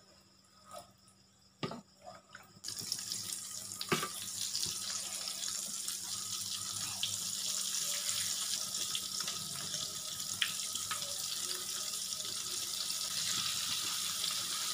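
Batter-coated chicken pieces deep-frying in hot oil in an iron wok. It is quiet at first with a few light clicks, then a steady, loud sizzle starts suddenly about two and a half seconds in and keeps going.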